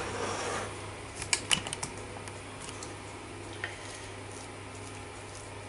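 Metal fork working through a mashed potato topping in a ceramic baking dish: a few light clicks of the fork against the dish about a second in and another near the middle, over a faint steady hum.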